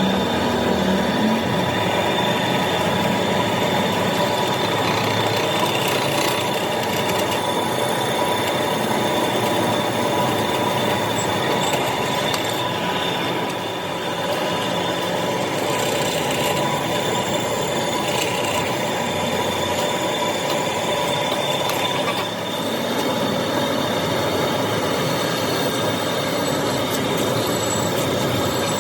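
A machine running steadily, with a constant high whine over a steady mechanical noise; the level dips briefly twice.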